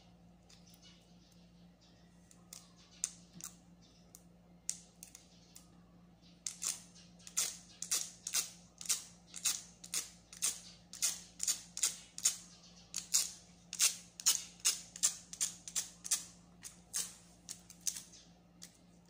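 Quick, repeated brushing strokes of a small plastic cleaning tool rubbed across a smartphone's glass screen to dislodge dust. Sparse and soft at first, the strokes come at about two to three a second and grow louder from about six seconds in. A faint steady hum runs underneath.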